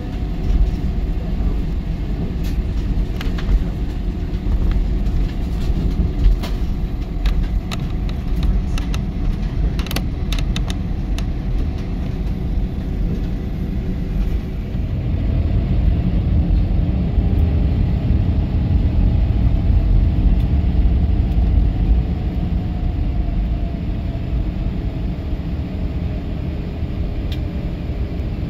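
Airbus A320 cabin noise while taxiing: a steady low rumble from the jet engines and the rolling airliner, with scattered clicks and rattles in the first ten seconds. About halfway through, a faint engine hum slowly rises and falls in pitch as the noise swells and then eases.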